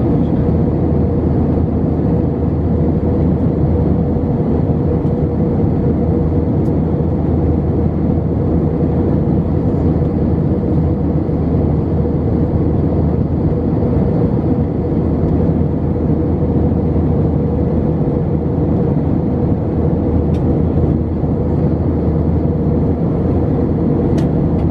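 Airbus A320 cabin noise in flight, heard from a window seat over the wing: a steady wash of engine and airflow noise with a constant hum running through it.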